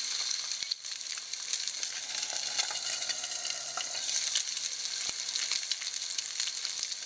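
Barracuda fish rolls sizzling in cooking oil in a frying pan over medium-low heat: a steady crackling hiss, with a couple of sharp clicks.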